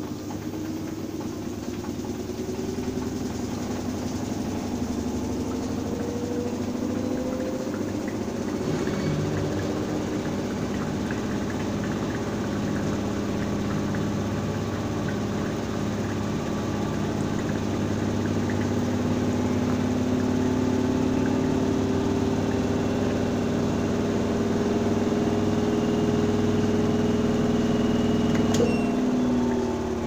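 Front-loading washing machine running, its motor and drum whining with a pitch that climbs slowly and grows louder as the drum speeds up. Near the end there is a click, then the pitch falls.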